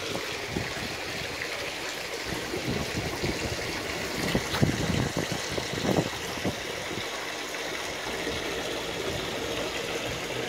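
Steady trickle and splash of water running into a fish pond, with a few brief knocks.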